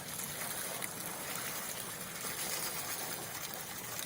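Water pouring out of a container in a steady stream and splashing down.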